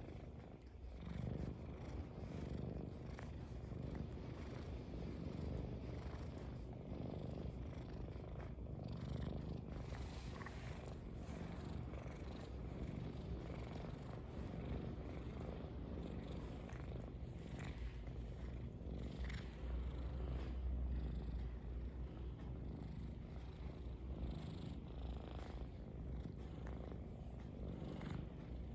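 Domestic cat purring steadily at close range, the purr rising and falling with its breathing. Short licking sounds come now and then as it grooms its fur.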